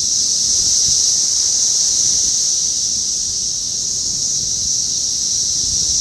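Dense chorus of Brood X 17-year periodical cicadas (Magicicada): a loud, continuous high-pitched droning hiss with no breaks, and low wind rumble on the microphone beneath it.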